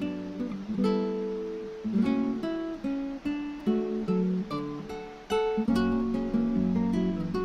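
Background music: an acoustic guitar plucked and strummed in a steady melody.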